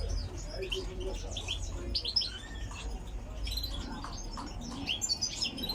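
Small cage birds chirping: short high chirps in scattered clusters, over a low steady hum.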